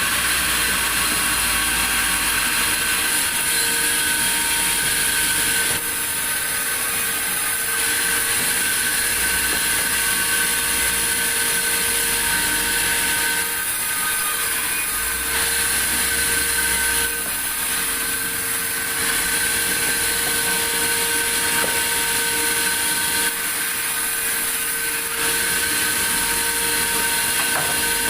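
A sawmill saw running steadily with a constant high whine and a mechanical hum. Its noise shifts briefly a few times.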